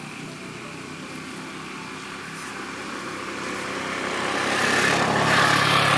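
A motor vehicle passing close by: its engine and road noise grow steadily louder over several seconds and are loudest near the end.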